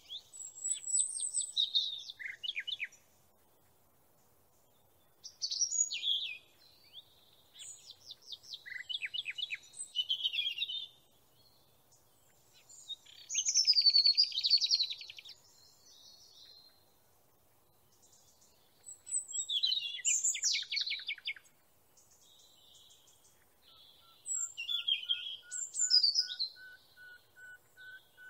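Songbird singing in phrases of a few seconds each, with quick trills and rattles, separated by short pauses. From about three-quarters of the way through, a faint, rapid run of lower notes continues under the song.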